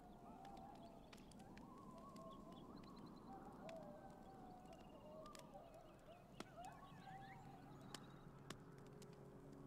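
Faint campfire crackling in scattered sharp pops, under a low rumble. Faint wavering, gliding animal calls, like distant howling, overlap throughout.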